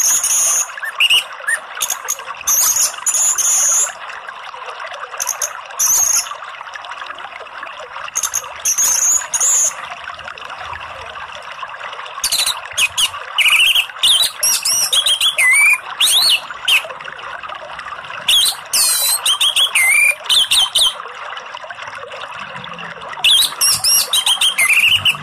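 Orange-headed thrush (anis merah) singing in loud bursts of rapid, high phrases with rising and falling whistles, over a steady rush of flowing water.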